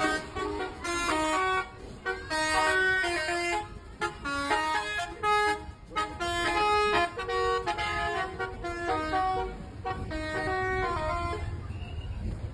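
Bus telolet horns playing quick stepped multi-note tunes in repeated bursts. The tooting stops about eleven seconds in, leaving a low engine rumble.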